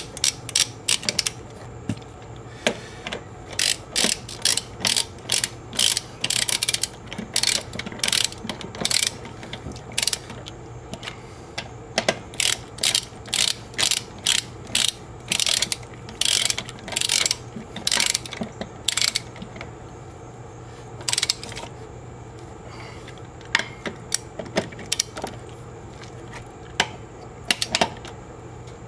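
Ratchet wrench clicking in repeated runs of strokes as wheel lug nuts are tightened, with a few short pauses between runs.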